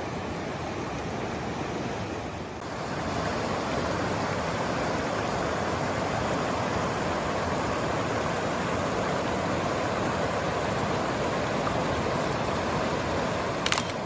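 Rushing mountain stream water, a steady noise with no tone in it, which grows louder about two and a half seconds in; a brief click near the end.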